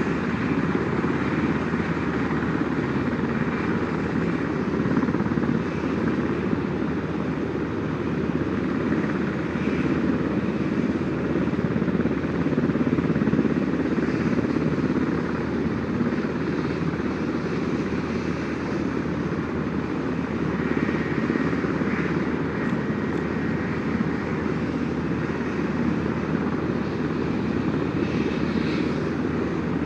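Several CH-47 Chinook helicopters running on the ground with their tandem rotors turning, a steady, loud rotor and turbine drone.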